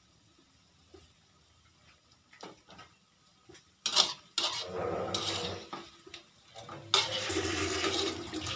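A metal spatula clanks and scrapes against a steel wok about four seconds in as anchovy fritters are turned in hot oil, followed from about seven seconds by a loud steady sizzle of the fritters frying.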